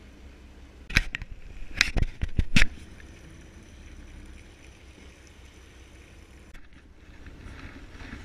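Four or five sharp knocks of fishing tackle being handled at a boat's rail, between about one and three seconds in, over a steady low rumble from the party boat and wind.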